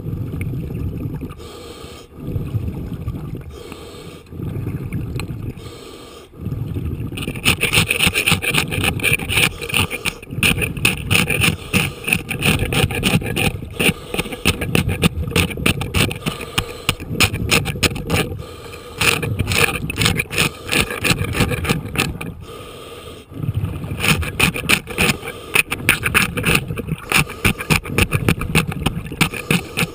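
Hand scraper rasping compacted barnacle growth off a boat's keel underwater, a dense run of quick scraping strokes that starts about seven seconds in and pauses briefly past the middle. Before the scraping, the diver's scuba regulator breathing and bubbles come as low rushes every couple of seconds.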